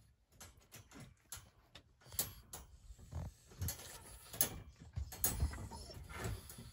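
Faint, irregular light clicks, rattles and rustles around a wire dog crate as a small dog licks and nuzzles at a hand held to the bars.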